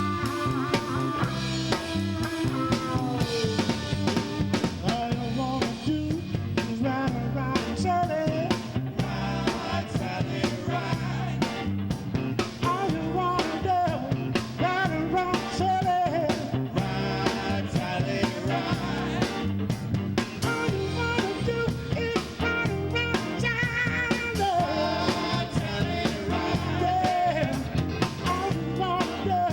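A band playing a song: drum kit and instruments under a singer's voice.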